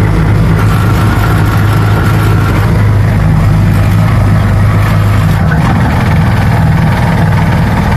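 Motorcycle engine of a tricycle (motorcycle with sidecar) running steadily while cruising, heard from inside the sidecar. The engine note shifts slightly about five and a half seconds in.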